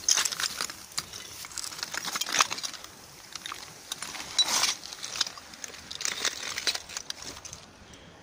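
Irregular rustling and crackling of footsteps through wet grass, with the phone being handled, easing off near the end.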